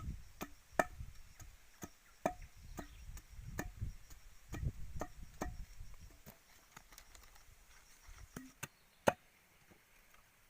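Sharp wooden knocks and taps at an irregular pace, like small sticks being struck or chopped while a simple snare is put together, with rustling handling noise between them. The loudest single knock comes near the end.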